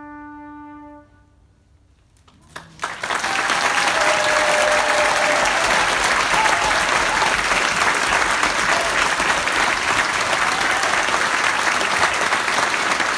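The band's last held note, with a cornet on top, ends about a second in. After a short hush, audience applause breaks out about three seconds in and carries on loud and steady.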